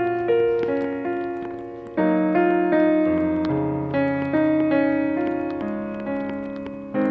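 Slow background piano music: chords struck and left to fade, with single notes picked out above them and a new chord about every two seconds.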